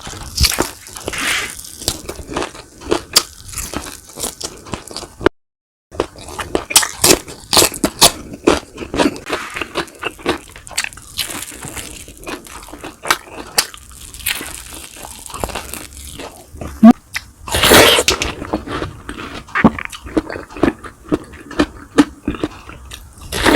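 Close-miked eating: a person crunching, biting and chewing food, likely fried milkfish and rice, in many irregular crackly bites. The sound cuts out briefly about five seconds in.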